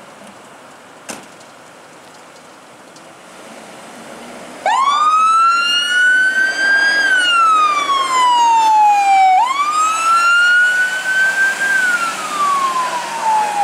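Fire rescue truck's siren on wail: it cuts in suddenly about a third of the way in, rises to a high pitch, then falls slowly, and repeats the rise and fall about every five seconds. Before it there is a quieter stretch with one sharp click.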